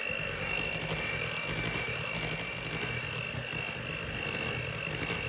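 Electric hand mixer running steadily, its beaters whipping cake batter in a glass bowl: a constant motor whine over a low hum.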